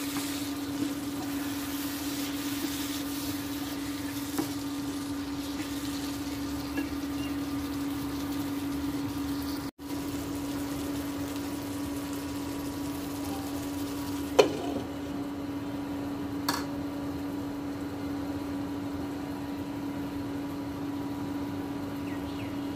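Pan of elephant ear stems simmering and bubbling on an induction cooktop over the cooktop's steady electrical hum. A sharp knock comes about fourteen seconds in, with a smaller one a couple of seconds later.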